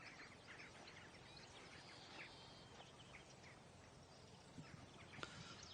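Near silence: faint open-field ambience with a few faint, distant bird calls and small ticks.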